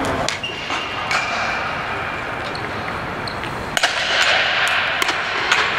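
Ball hockey play: a string of sharp cracks and knocks from sticks hitting the ball and the ball striking the boards, coming thicker in the second half, over the general noise of the rink.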